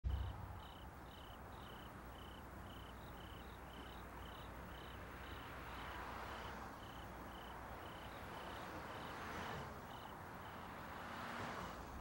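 Faint insect chirping, a short high chirp repeating about twice a second, over a low steady background hum.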